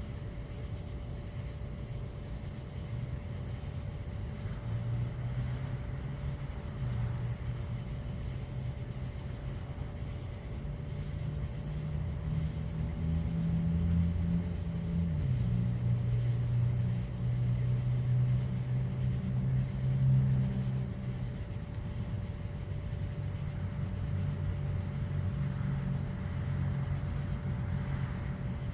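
A motor vehicle's engine running, a low hum whose pitch shifts in steps and grows louder toward the middle before easing off.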